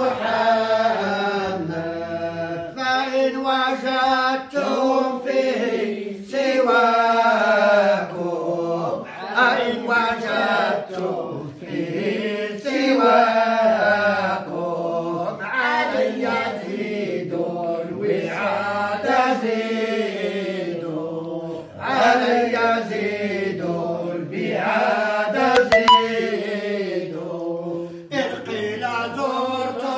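Unaccompanied Arabic chanting: voices drawing out long, winding melodic phrases a few seconds each, with brief breaths between them.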